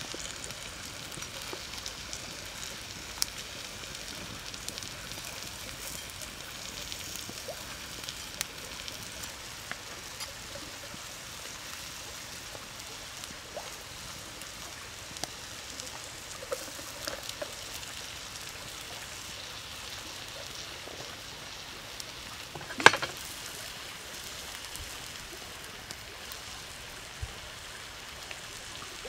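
Prawns sizzling steadily on a hot stone slab over a wood fire, with scattered small pops and crackles. One sharp, loud crack about 23 seconds in.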